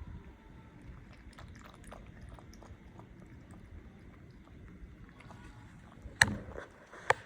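Dog eating: scattered small clicks, then two sharp, louder knocks near the end, over a steady low rumble.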